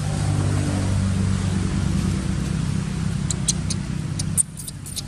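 Steady low hum of a running motor, like an idling engine, that drops away suddenly about four seconds in, with a few short, sharp high clicks over the last two seconds.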